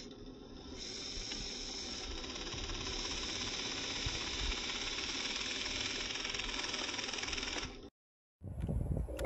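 Radio-controlled model excavator's electric motors and gearing whirring steadily as it swings its bucket and tips soil into a model dump truck. The sound cuts off abruptly about eight seconds in.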